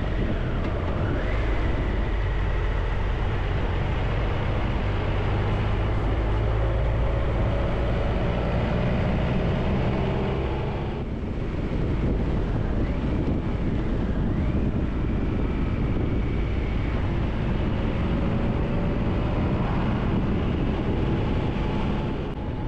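Triumph Tiger 1200's three-cylinder engine running under way, with the wind and road noise of riding. Its pitch rises a few times, and there is a brief drop in loudness about eleven seconds in.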